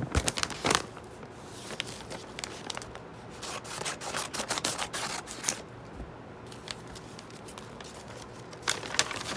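Packaging being handled and opened by hand: scratchy rustling and clicks in irregular bursts, loudest near the start and again near the end.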